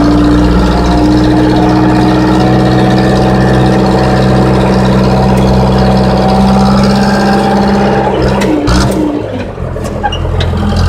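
Case 580E backhoe's diesel engine running under load, heard from inside the cab, its note climbing slightly. About eight seconds in the engine note drops and the sound dips briefly, with a few clicks, then picks up again near the end.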